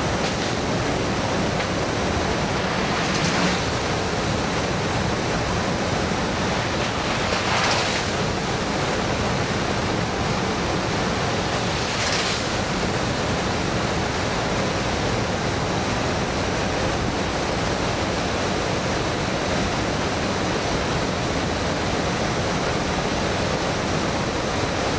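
Steady rush of airstream and engine noise in the cargo hold of a transport aircraft flying with its rear ramp open during a night airdrop. Three brief surges of louder hiss come a few seconds apart early in the stretch.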